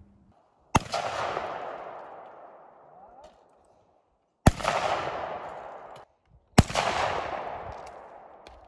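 Three rifle shots, the second and third about two seconds apart, each followed by a long rolling echo that fades out over a couple of seconds.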